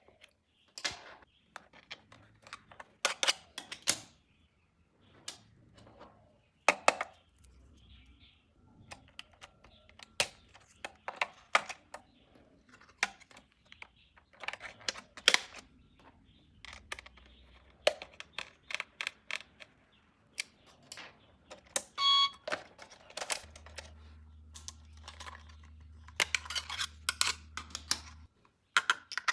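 Handling noise from unboxing toy cars: irregular clicks, taps and rustles, with one short electronic beep about three quarters of the way through.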